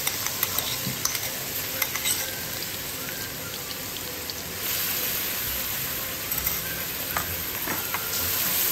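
Blended garlic and shallots sizzling as they fry in hot oil, stirred with a wooden spatula that adds scattered scrapes and taps against the pan. The sizzle gets louder about halfway through.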